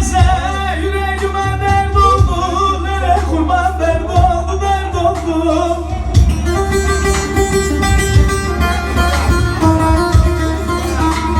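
Saz (bağlama) playing a Turkish folk tune, with a voice holding a wavering sung note over it for the first few seconds; from about six seconds the saz plays on alone in quick plucked notes.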